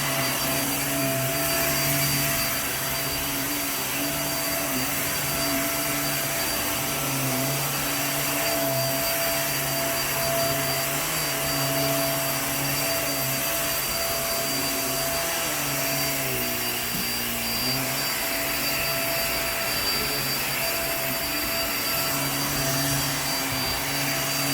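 Hoover React QuickLift upright vacuum running steadily on carpet, a motor hum and whine over the rush of suction. About two-thirds of the way through, the motor's pitch briefly drops and comes back up.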